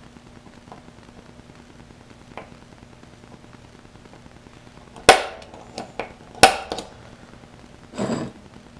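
Center punch marking drill-hole centres in a quarter-inch steel bar on a wooden bench: two sharp metallic snaps about a second and a half apart, with a few lighter clicks and a duller knock near the end.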